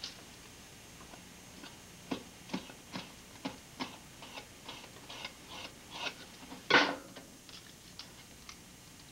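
Irregular clicks and taps of a knife and hands working meat on a wooden cutting board, coming about two to three a second, with one louder knock about two-thirds of the way through.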